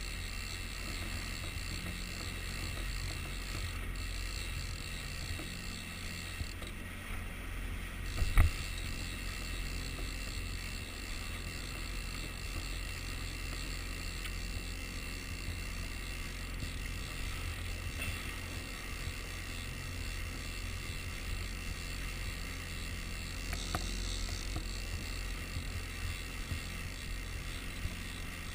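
Small boat underway at trolling speed: a steady low rumble of the motor and water, with one sharp knock about eight seconds in.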